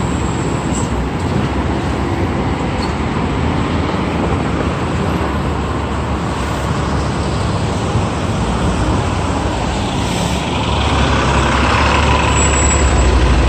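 Road traffic on a busy city street: a steady rush of engines and tyres that grows louder, with a deeper rumble, from about ten seconds in.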